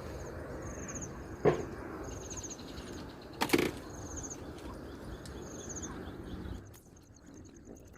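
Insects chirping in short high trills that repeat about once a second over a low background rumble. A sharp knock sounds about a second and a half in and a louder thud about three and a half seconds in, and the rumble drops away near the end.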